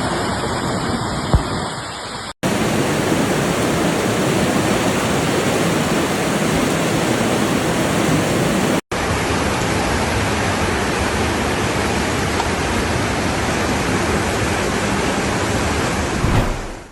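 Floodwater rushing as a steady, loud torrent, heard in three clips joined by sudden cuts about two and a half and nine seconds in.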